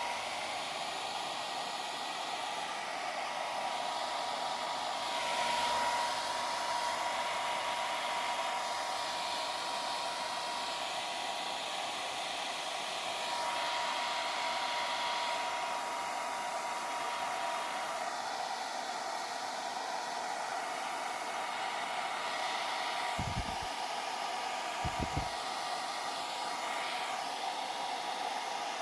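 Hair dryer running steadily, a rushing blow with a thin constant whine, warming freshly poured resin so that it flows out over the edges of the pieces. Two brief low bumps come near the end.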